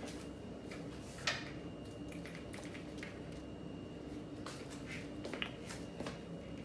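Light kitchen handling sounds around a cooking pot of seasoned raw chicken: a few short clicks and knocks, the sharpest about a second in, over a faint steady hum.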